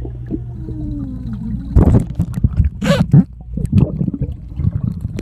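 Pool water heard underwater through a phone in a waterproof pouch: a steady low muffled rumble with a faint tone falling in pitch. About two seconds in, a run of irregular loud bubbling gurgles and knocks begins as a swimmer moves close to the phone.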